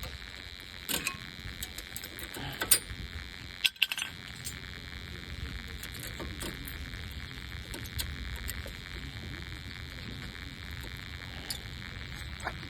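Scattered metal clinks and clicks of tools and brake parts being handled during a brake pad job, a few sharper ones in the first four seconds, over a steady low background noise.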